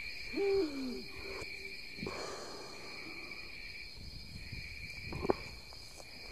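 A person's short vocal sound, falling in pitch, under a second in, over a steady high-pitched drone of insects in the grass. A single sharp click about five seconds in.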